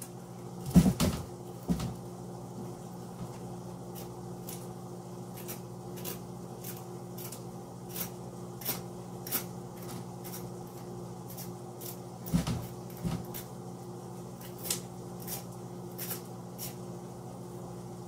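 Spoon scraping butternut squash seeds and pulp into a trash can: a few sharp knocks, loudest about a second in and again around twelve and thirteen seconds in, with light scattered clicks between, over a steady low hum.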